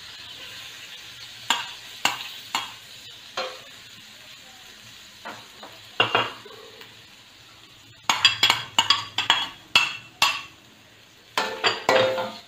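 Metal spatula knocking and scraping against a stainless steel wok while stir-frying, over a light sizzle that fades. Spaced strokes at first, then quick runs of strokes about eight seconds in and again near the end.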